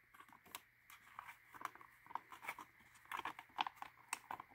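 Faint, irregular small clicks and scrapes of fingers handling and pressing on a plastic model trailer body as its parts are fitted together.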